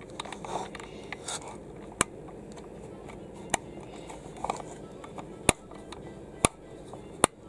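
Plastic combination-lock code dials on a toy doll capsule clicking as they are turned by hand to try a code: about five sharp clicks at uneven gaps, with fainter ticks between.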